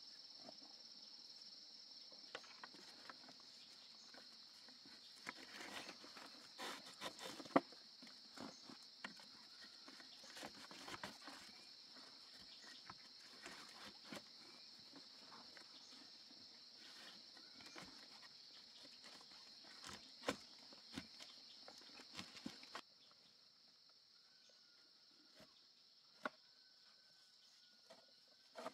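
Steady high-pitched insect chorus, with scattered light knocks, clicks and rustles of wooden stakes and vine being handled and tied. The insect drone stops about three-quarters of the way through, leaving quieter rustling and a faint thin wavering whistle.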